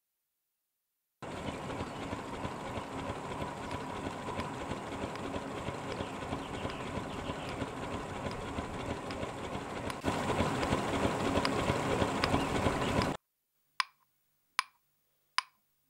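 A steady, noisy engine running, starting suddenly after a second of silence, growing louder about ten seconds in, then cutting off abruptly. Three sharp knocks follow, each ringing briefly.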